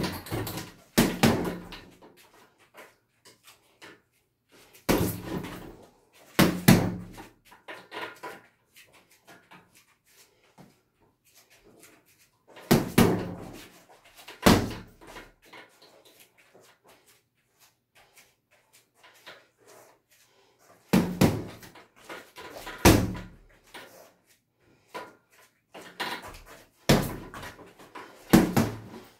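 Punches and kicks landing on a hanging heavy bag: sharp thuds in quick clusters of two or three, repeated about five times with pauses of several seconds between.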